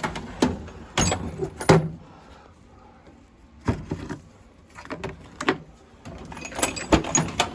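Metal hand tools clinking and knocking: a dozen or so irregular sharp clanks as a 10 mm wrench or socket is picked up and set on the cam sprocket nuts of an ATV engine.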